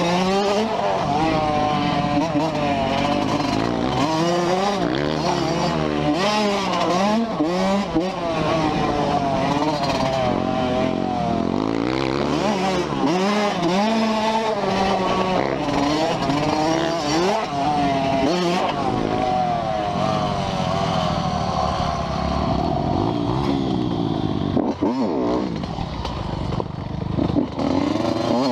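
Dirt bike engine being ridden hard, its pitch rising and falling again and again as the throttle opens and closes.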